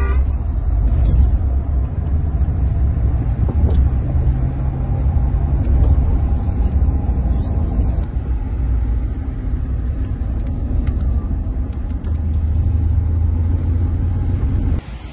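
Car cabin noise while driving: a steady low rumble of engine and tyres on the road. It cuts off suddenly near the end.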